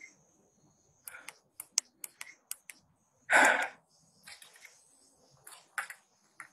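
Footsteps crunching on gritty debris over a concrete floor: a scattered string of short sharp clicks and crackles, with one louder noisy burst under half a second long about three seconds in.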